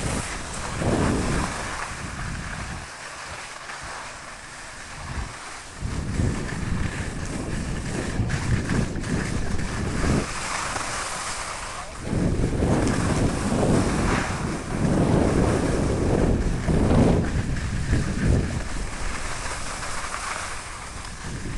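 Wind buffeting the microphone over the hiss and scrape of skis running across the snow. It eases off for a few seconds about three seconds in, then grows louder again from about twelve seconds.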